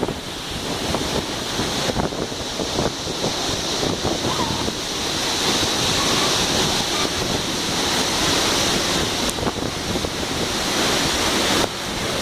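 Waterfall running: a steady rush of falling water, which drops suddenly in level near the end.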